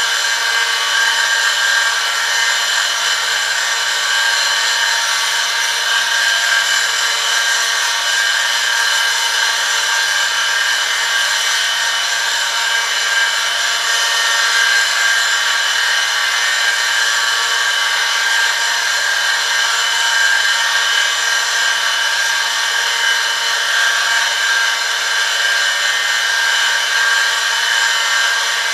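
Oil film-strength friction test rig running under a 1 kg load: an electric motor spins a steel ring against a metal test sample lubricated with Eurol Sportbike 10W-40 fully synthetic ester oil at 100°C, metal rubbing on metal. A steady, high-pitched whine and screech that does not change.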